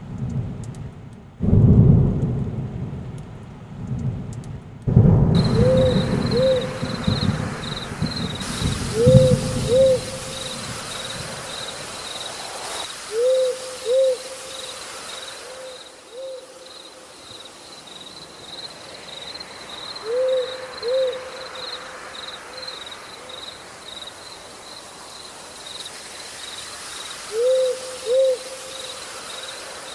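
Nature ambience: an owl hooting in pairs of short calls, five pairs several seconds apart, over a steady high insect chirring and a hiss like rain. Low rumbles like thunder come and go in the first ten seconds.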